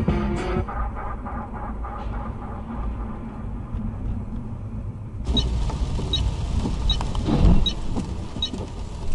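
A car's running and road noise, a steady low rumble. About five seconds in, a short high tick starts repeating roughly every 0.8 s, and a low thump follows a couple of seconds later.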